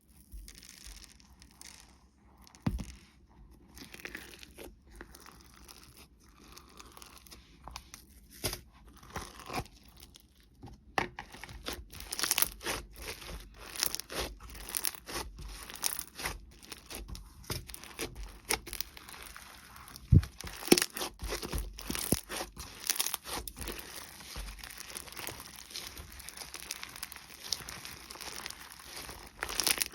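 Clay-mixed slime being handled and squished, giving a dense run of small sticky pops and clicks; sparser at first, busier and louder from about eleven seconds in.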